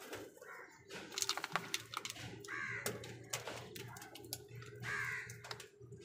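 House crows cawing, with two louder harsh caws about two and a half and five seconds in, among many sharp clicks and taps of beaks pecking at food in a plastic bowl.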